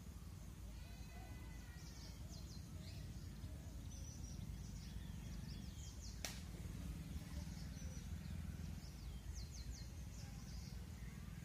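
Faint outdoor ambience: insect buzz and short high bird chirps over a steady low rumble, with one sharp click about six seconds in.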